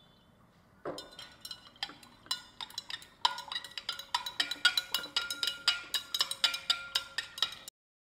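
A glass stirring rod clinking against the inside of a Pyrex glass beaker as a liquid fragrance mixture is stirred, each strike ringing briefly. The clinks start about a second in, come faster and denser from about three seconds in, and stop abruptly just before the end.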